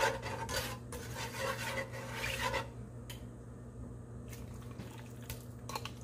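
A utensil scraping and stirring in a pot in several strokes, easing off about halfway through to a few light clicks, over a steady low hum.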